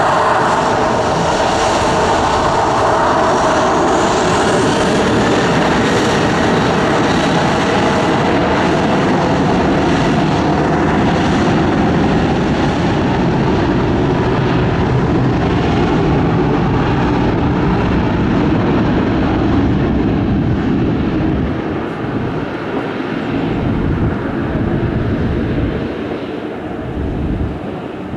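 Ryanair Boeing 737-800's twin CFM56 jet engines running loud and steady at high thrust as the airliner begins its takeoff roll, a tone in the engine noise falling slightly over the first several seconds. The sound eases off in the last several seconds as the aircraft moves away down the runway.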